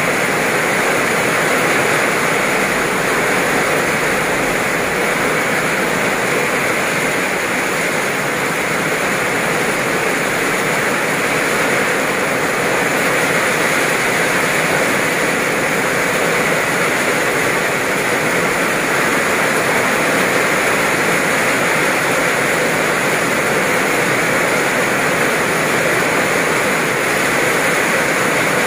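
Heavy rain pouring down steadily onto wet pavement and puddles, an even, unbroken hiss.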